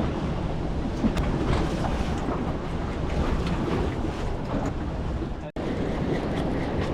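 Wind on the microphone and water sloshing around a small fishing boat, with a few faint knocks. The sound drops out for an instant about five and a half seconds in.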